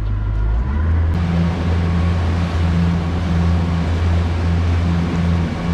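Yamaha 80 hp four-stroke outboard running steadily with the boat under way, a low steady drone beneath the hiss of wind and water. The wind and water hiss grows louder about a second in.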